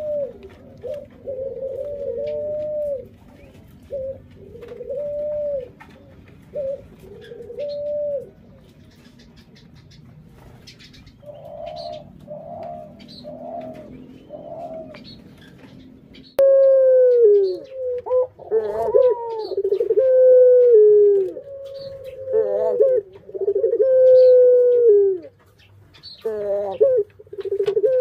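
Ringneck doves at the nest, giving repeated short cooing calls, each note arching up and down. About sixteen seconds in, the calls suddenly get louder and closer, with longer falling notes.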